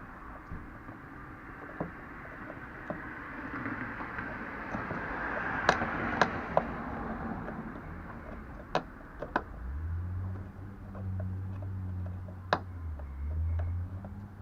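Scattered sharp clicks and taps of a screwdriver working at a car's trunk trim panel and its plastic retaining clips. A low steady hum comes in about two-thirds of the way through and lasts about four seconds.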